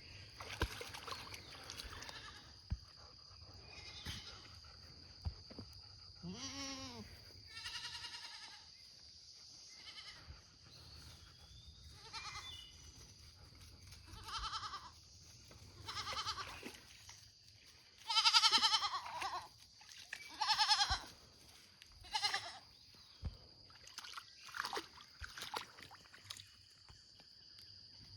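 An animal giving a dozen or so short, wavering, pitched cries, each under a second, the loudest about two-thirds of the way through, over a steady high insect buzz.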